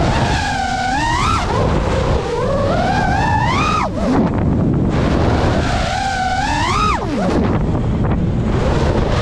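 FPV quadcopter's brushless motors and propellers whining, the pitch climbing as the throttle is pushed and then falling sharply as it is cut, three times over, over a steady rush of wind on the microphone.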